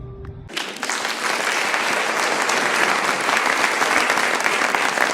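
Crowd applause: many hands clapping in a dense, steady crackle that starts abruptly about half a second in.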